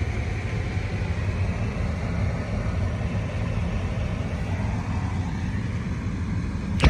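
Car running with a steady low rumble and road noise, with a sharp click right at the end.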